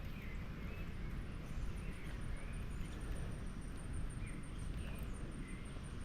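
Outdoor woodland ambience: small birds chirping faintly here and there over a steady low rumble of wind or movement on the microphone. From about one and a half seconds in, a rapid high-pitched ticking runs at about six ticks a second.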